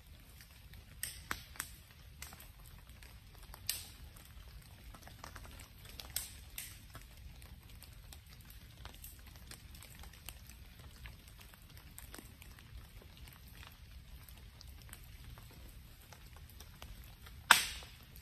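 Open wood fire crackling, with scattered sharp pops and one much louder crack near the end.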